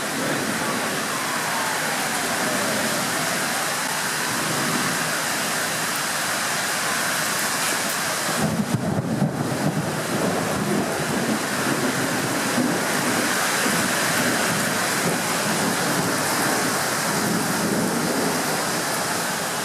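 Heavy rain pouring steadily in a thunderstorm, a dense even hiss, with a short gustier patch about halfway through.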